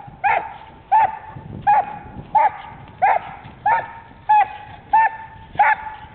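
A Belgian Malinois barks steadily and rhythmically, about nine loud barks at roughly one every 0.7 seconds. This is hold-and-bark work, with the dog barking at the decoy to hold him in place.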